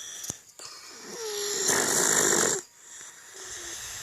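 A sleeping person snoring: one loud snore starting about a second in, lasting about a second and a half and cutting off abruptly.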